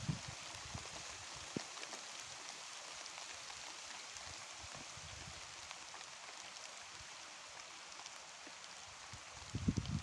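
Steady rain falling: a fine, even hiss with scattered faint drop ticks.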